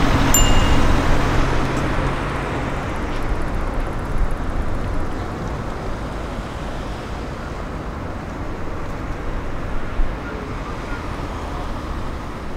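Street traffic: a car passing close by, louder over the first couple of seconds and fading, then steadier, quieter city traffic noise.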